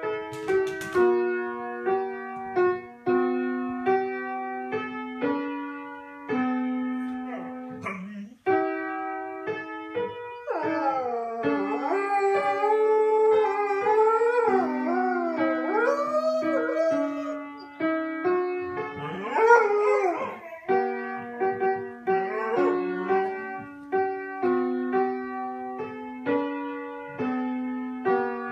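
Piano playing a slow melody, with a sighthound howling along: one long wavering howl that bends up and down for about seven seconds from a third of the way in, then a shorter howl just after the middle.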